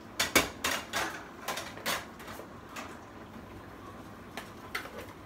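A spoon knocking and scraping seasoning out of a plastic mixing bowl into a cooking pot: a quick run of clacks and scrapes in the first two seconds, then a few lighter taps.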